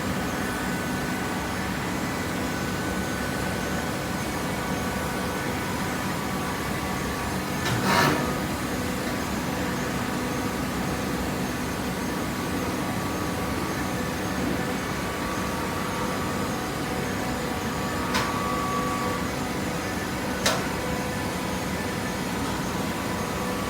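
Cardboard baler line with its feed conveyor running: a steady machine hum with several constant tones. A louder knock comes about eight seconds in, and two short sharp clicks follow later.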